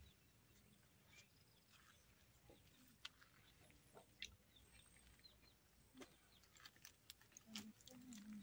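Near silence: faint background with a few soft clicks and short high chirps.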